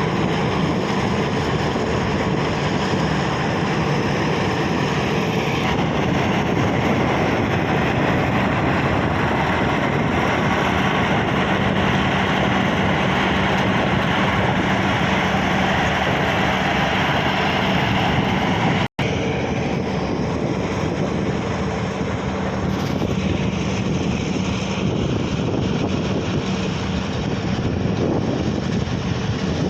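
Bulldozer's diesel engine running steadily under load during levelling work, with a continuous low drone. The sound drops out for an instant about two-thirds of the way through.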